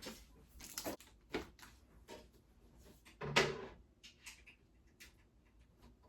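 Knocks and clicks of flat-pack dresser parts being handled and fitted together, with one louder knock about three and a half seconds in.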